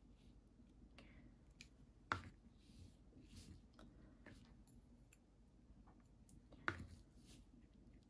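Near silence in a small room, broken by two sharp clicks: one about two seconds in and another a little before seven seconds.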